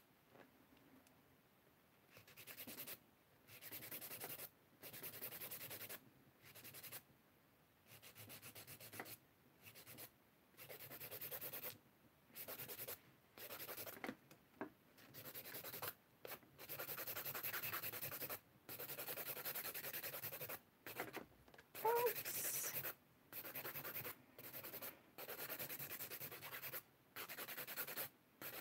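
Acrylic stiletto nails being hand-filed with a crescent nail file: runs of quick rasping strokes broken by short pauses. One brief squeak comes about two-thirds of the way through.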